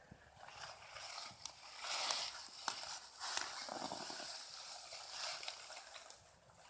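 Digging potatoes out of a raised garden bed: irregular scraping and rustling in loose soil, with a few small knocks, fading shortly before the end.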